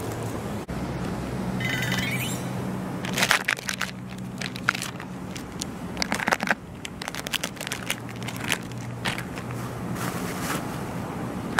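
Plastic food pouch crinkling and crackling as it is handled, sharp irregular crackles from about three seconds in, over a low steady hum.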